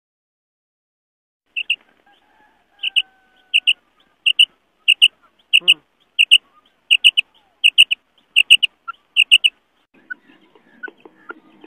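Female common quail calling: short, sharp, high notes, mostly in quick pairs, repeated a little more than once a second for about eight seconds, starting about a second and a half in. This is the female call used to lure male quail.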